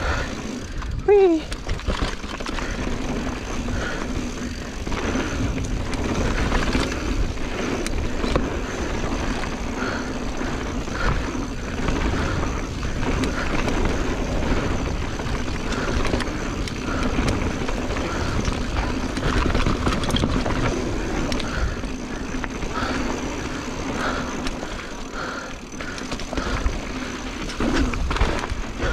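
Mountain bike being ridden along a dirt trail: steady rolling and tyre noise with frequent knocks and rattles from the bike over rough ground, and a rider's short shout of "whee" about a second in.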